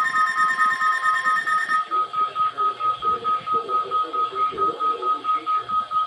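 Weather radio receivers alarming for the NOAA Weather Radio required weekly test: a rapid, high, evenly repeating beeping, about four or five beeps a second. Two other steady tones, one lower and one higher, overlap it for the first second or two and then stop.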